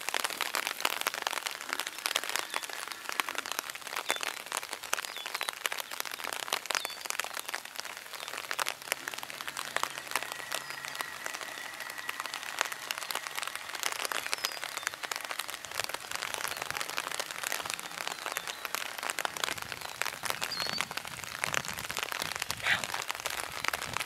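Rain falling on an umbrella held over the microphone: a steady, dense crackle of small drop hits.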